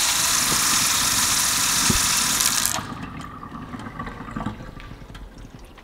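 Kitchen faucet running a full stream of cold water into a stainless steel sink to bleed air from the newly connected cold line, shut off about three seconds in.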